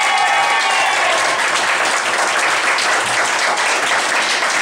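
Audience applauding, as a held sung note fades out in the first half second.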